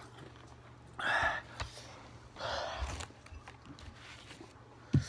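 Two loud, breathy gasps as a person pants against the burn of a very hot chili lollipop, then a low thump near the end.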